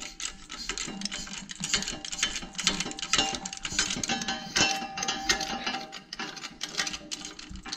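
Hydraulic shop press being hand-pumped: a run of many irregular mechanical clicks and rattles as the ram is lowered toward a front wheel hub before pressing it into a new wheel bearing.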